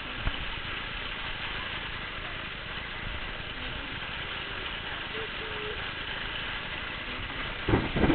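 Hail and wind storm: a steady, dense hiss of hail and rain driven by wind, with a cluster of loud knocks near the end.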